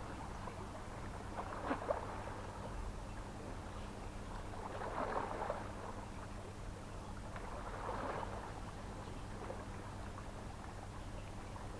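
Small sea waves washing against the shore in soft swells, about three over the stretch, over a steady low hum.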